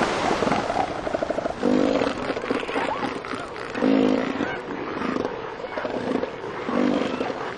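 Southern elephant seal bulls giving threat calls at each other in a territorial fight: a rapid pulsing call about a second in, then three loud pitched calls roughly two to three seconds apart, over a steady background rush.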